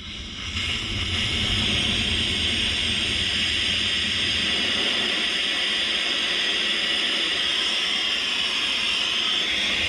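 Soldering torch flame burning with a steady hiss, coming up to full strength over the first second or so, as it heats fluxed metal for a sweat solder joint.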